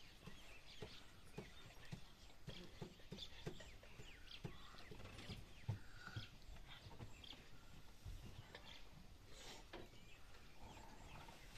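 Faint background of scattered bird chirps with soft, irregular clicks.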